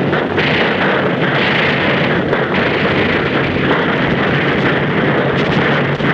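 Heavy naval anti-aircraft gunfire and flak bursts blended into a dense, steady din with a few faint cracks.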